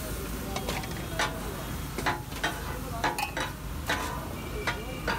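Metal spatulas striking and scraping a large iron tawa griddle, sharp clanks about once or twice a second, over the steady sizzle of fish katakat frying.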